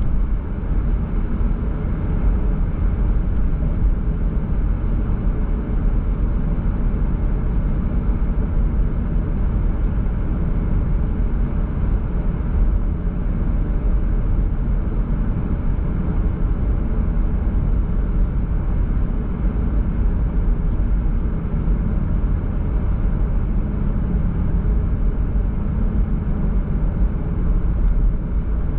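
Car driving at a steady speed: an even, low rumble of tyres on the road and engine noise, with no change in pace.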